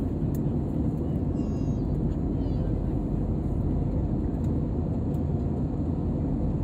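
Steady low rumble of an airliner's engines and rushing air, without rise or fall.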